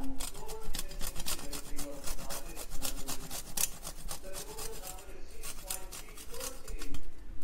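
Almonds grated by hand on a stainless steel box grater: quick repeated rasping strokes of nut against the metal teeth.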